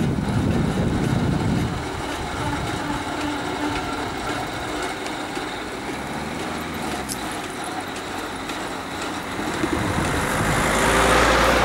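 Peugeot hatchback driving over the level crossing and passing close by, its tyres and engine swelling to the loudest point near the end. A low rumble, like wind on the microphone, fills the first two seconds.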